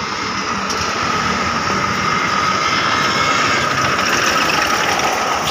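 Single-cylinder diesel engine of a homemade serkel (mobile circular-saw) vehicle running as the vehicle drives past, growing louder as it comes close about four seconds in.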